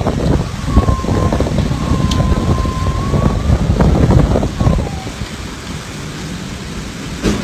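Cyclone storm: strong wind buffeting the microphone over the rush of floodwater and heavy rain, in gusty surges. A faint whistling tone sounds for a few seconds in the first half.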